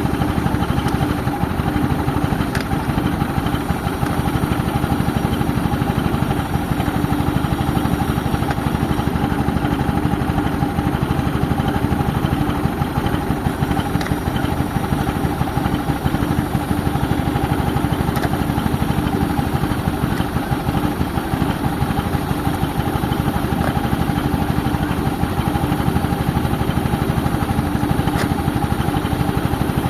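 Tractor engine running steadily, driving an air compressor, with a dense rapid pulsing underneath.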